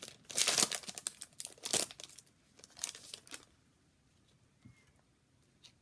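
Hockey card pack wrapper being torn open and crinkled in the hands: crackling rustle in the first two seconds and again around three seconds in, then it goes quiet.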